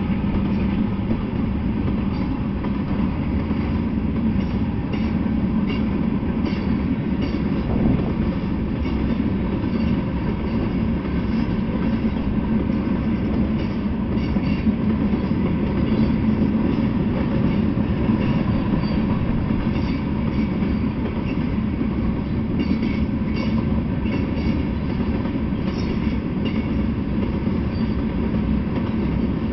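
Freight train of covered hopper cars rolling steadily past: a continuous rumble of steel wheels on rail, with faint scattered clicks.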